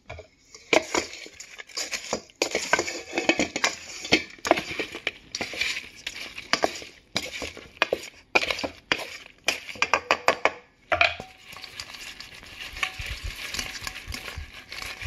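Fried frog legs being tossed and stirred in a stainless-steel pot, with irregular clinks and scrapes against the metal over a steady hiss.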